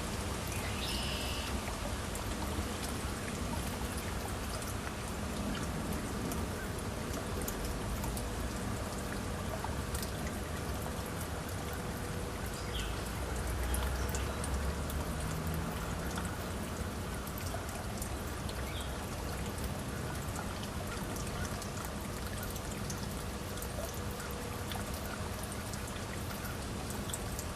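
Small stream flowing and trickling over rocks, a steady rush of water.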